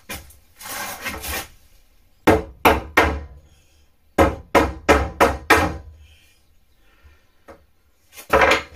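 A hammer knocking on a wooden cabinet panel: a short scrape of the board, then three blows, then a quick run of about six blows, and one more loud knock near the end.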